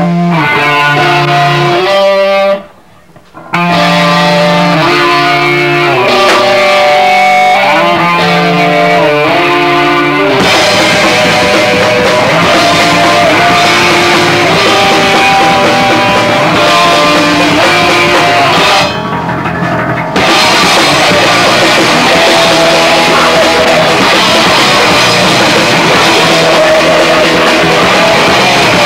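Live hardcore punk band with electric guitars and a drum kit playing loud. It opens on a guitar riff that stops dead for about a second. The full band with drums crashes in about ten seconds in, drops out briefly near twenty seconds, and comes straight back.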